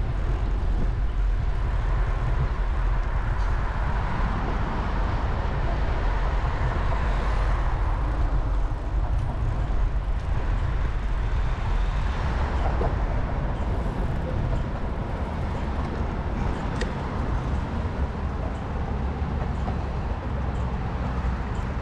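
Steady city traffic noise with a continuous heavy low rumble, heard from a bicycle riding through the streets.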